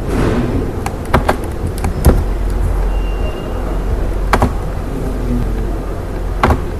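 Scattered sharp clicks of a computer keyboard and mouse as spreadsheet cells are edited, about seven irregular clicks over a steady low background rumble.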